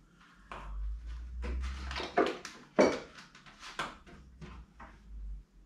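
A serving spoon scraping and clinking in a pot of rice, with scattered short knocks and clatter. The sharpest knock comes near the middle.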